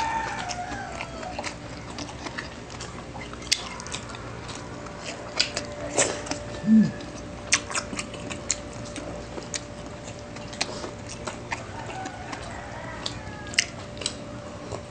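Close-up eating sounds: chewing and mouth noises with many small scattered clicks and taps as pandesal bread rolls are dipped into fried sardines and eaten by hand. A short low vocal 'mm' comes about seven seconds in.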